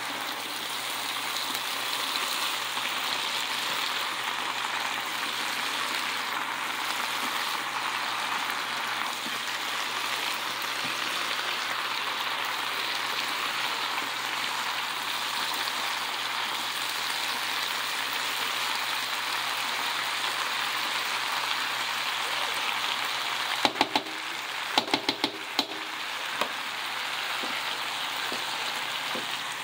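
Cabbage and green beans sizzling as they sauté in a large pan, a steady frying hiss. Near the end comes a short run of sharp metallic clinks, as of a fork striking the pan.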